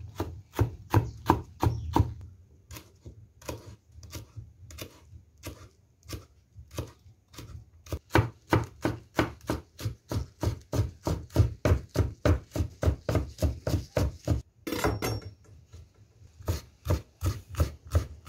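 Kitchen knife chopping rolled kale and chard leaves on a wooden cutting board: a long run of sharp knocks, about four a second at its fastest, with a short pause about three-quarters of the way through.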